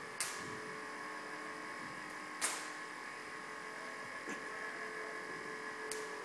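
Van de Graaff generator running with a steady hum, broken by a few sharp snaps, the loudest about two and a half seconds in: sparks jumping from the charged dome to a hand-held metal discharge sphere.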